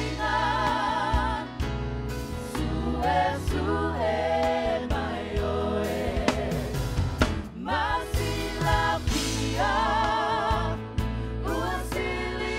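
Samoan worship song sung by a mixed group of men and women in several voices, held notes wavering with vibrato, over a steady low instrumental accompaniment.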